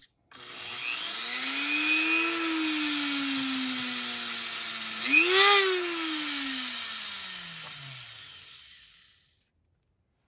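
Dremel rotary tool motor spinning up to a steady whine. Its pitch jumps up briefly about halfway through, then winds down and stops.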